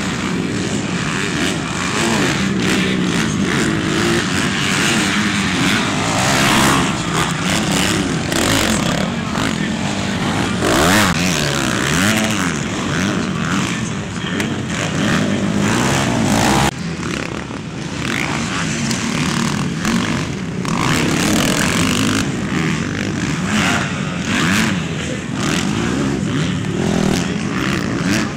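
Several motocross bikes racing, their engines revving up and dropping back over and over. The sound changes abruptly partway through.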